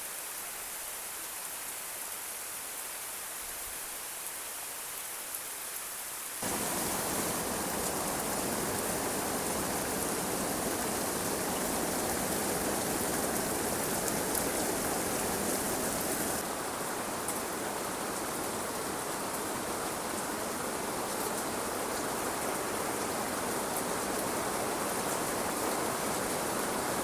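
Steady rain falling, an even hiss that gets abruptly louder about six seconds in.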